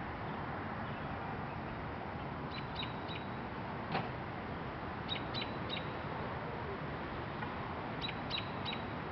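A small bird gives short, high chirps in quick runs of three, repeated three times about every two and a half seconds, over a steady outdoor rushing noise. A single sharp tap comes about four seconds in.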